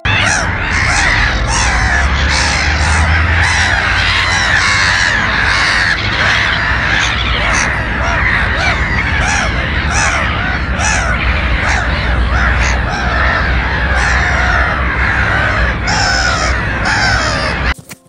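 Many black-headed gulls calling at once, harsh overlapping calls with no pause, over a steady low rumble.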